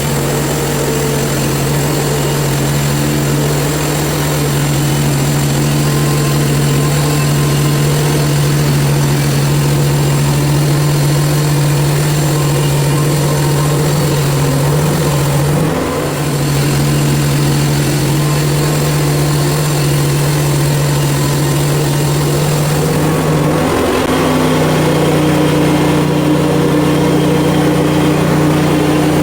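Portable bandsaw mill's gas engine running steadily under load while the band blade cuts through a red oak log. The engine note dips briefly about halfway through and shifts pitch a few seconds before the end.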